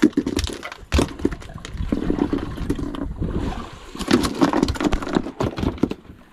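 A freshly landed triggerfish flopping and being dragged on a fiberglass boat deck: a quick run of sharp knocks, slaps and scrapes, uneven in timing.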